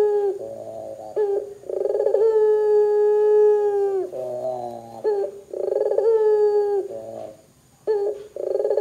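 Barbary dove (puter) cooing in a repeated series: each call opens with a short sharp note and runs into a steady coo, with one coo drawn out for about two and a half seconds in the middle.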